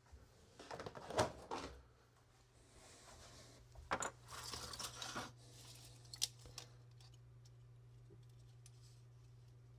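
Small hard plastic parts handled on a workbench: a few sharp clicks and short scraping rustles about a second in and again around four to five seconds in, over a steady low hum.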